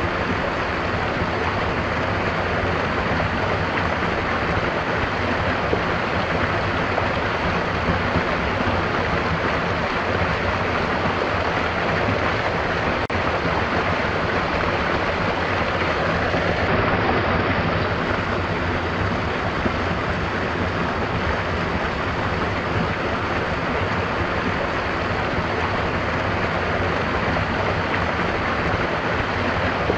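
A stream of water running, an even, continuous rush that stays steady throughout.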